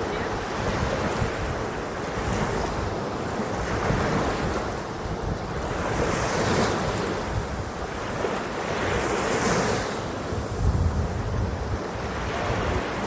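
Surf washing up the beach, with two waves swelling and rushing in about halfway and two-thirds through. Wind gusts buffet the microphone with a low rumble.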